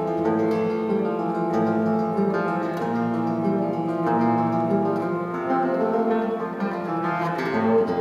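Solo steel-string acoustic guitar played fingerstyle: a picked melody over ringing bass notes, the notes overlapping and sustaining, with a few sharper plucks near the end.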